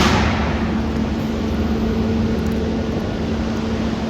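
Wind buffeting the microphone, a steady low rumble, with a brief hissing rush at the very start and a constant low hum underneath.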